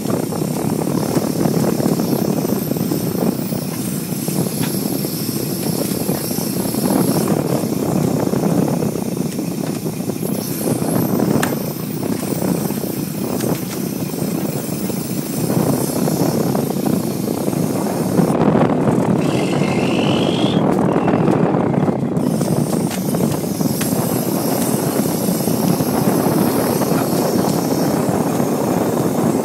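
Steady running noise of a gillnet fishing boat's engine.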